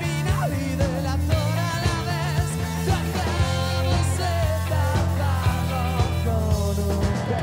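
Rock band playing: electric guitars, bass and drums keeping a steady beat, with a man singing over them.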